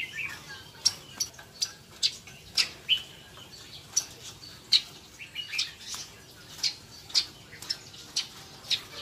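Caged red-headed babblers calling: a run of short, sharp chirps, about fifteen at uneven intervals, with a few short falling notes among them.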